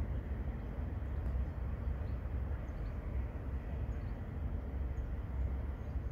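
Steady outdoor background noise: a low, unsteady rumble with a hiss above it and a few faint, short high chirps.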